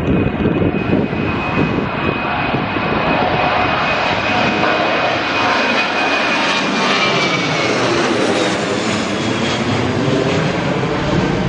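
Jet airliner's twin engines at takeoff thrust as it climbs out and passes overhead: a loud, steady roar with a high whine that slides down in pitch about seven seconds in as the aircraft goes past.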